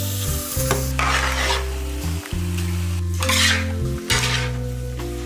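A spatula stirring and scraping through a sizzling pan over the fire, loudest in two bursts about a second and about three seconds in.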